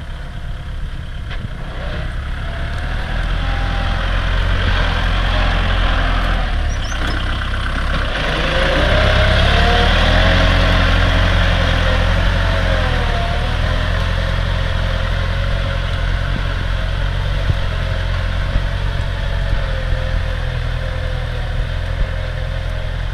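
Kubota tractor's diesel engine running under load as it pulls a disc plough through the soil. It grows louder as the tractor passes close, about eight to thirteen seconds in, with a wavering whine over the engine, then fades a little as it moves away.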